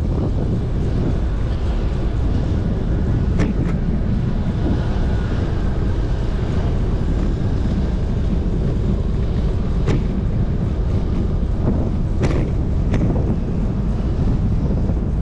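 Steady wind rush on an action-camera microphone while cycling, mixed with road noise. Five short sharp clicks or knocks cut through it: two about three seconds in, one around ten seconds, and two near the end.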